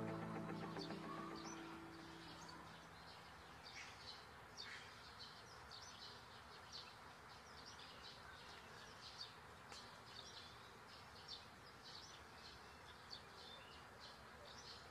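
Background music fades out over the first couple of seconds. It leaves a faint outdoor quiet with short high chirps from wildlife, about one or two a second.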